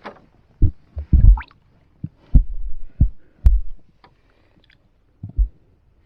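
Irregular dull, low thumps and knocks, about seven over a few seconds, as a caught largemouth-size bass is handled and let go from a small boat.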